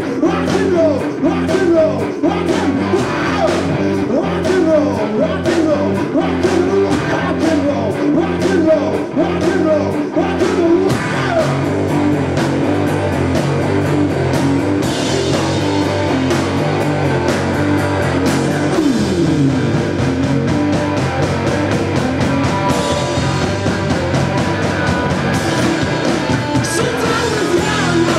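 Rock band playing live: electric guitar, bass and drums at full volume, with the cymbals washing brighter from about halfway through.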